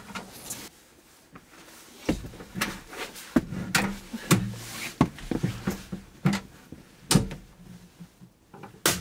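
Sprinter van passenger seat on a swivel base being slid forward and shifted by hand: irregular clunks and knocks from the seat rails and frame, with the seat striking the plastic trim.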